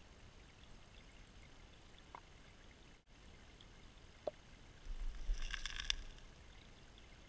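Gravel and pebbles rattling and scraping underwater for about a second, a little past the middle, as a spawning trout sweeps against the creek bed to dig its redd. Two faint short blips come before it.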